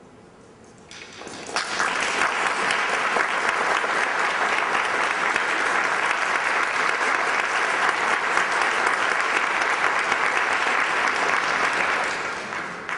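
Concert audience applauding, swelling in about a second in, holding steady, then dying away near the end.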